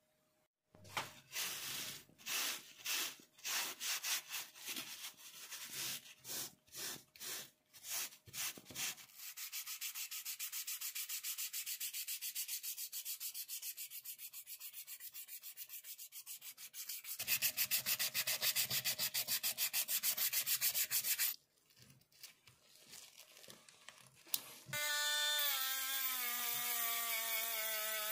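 A steel putty knife blade scraped by hand against an abrasive mesh sheet, first in separate strokes about two a second, then in fast continuous scrubbing that gets louder for a while before it stops. Near the end a small cordless rotary tool starts with a high whine that wavers in pitch as its small wheel works on the blade.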